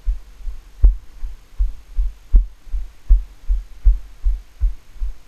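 A ridden horse's hoofbeats on arena sand, heard from the rider's helmet camera as rhythmic low thuds about three a second, with a few sharper knocks, the loudest about a second in and near halfway.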